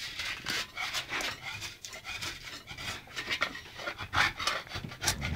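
Wallpaper being scraped and peeled off a wall with a hand scraper: a run of rough rasping and tearing strokes, with a dog close by.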